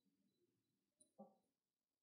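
Near silence, with one faint short sound about a second in.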